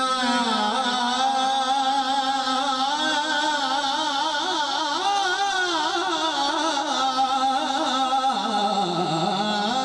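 A man singing a naat into a microphone through a public-address system: one long melismatic phrase with wavering, ornamented pitch and no clear words. The pitch dips low near the end.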